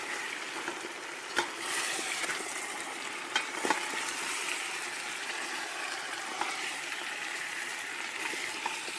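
Chicken, onion and spices sizzling in oil in a cooking pot as they are stirred. A few sharp clicks of the spoon against the pot come about a second and a half in and twice around three and a half seconds in.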